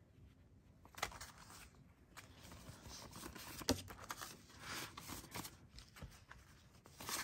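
Paper banknotes rustling as a stack of dollar bills is fanned and handled, with a few light taps and clicks, the sharpest about a second in and near the middle.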